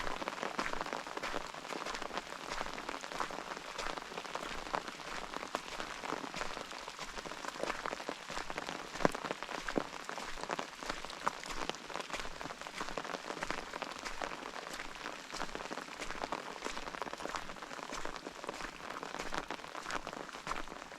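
Steady rain, with many separate drops striking close by and one sharper drop about nine seconds in.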